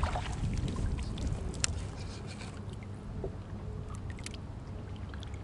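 Light wind noise on the microphone that eases after the first second, with a few faint clicks and taps from fishing gear handled on a kayak.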